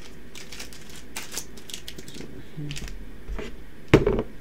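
Foil booster packs rustling and crinkling as handfuls are pulled out of the cardboard display box and mixed together, with a louder knock near the end.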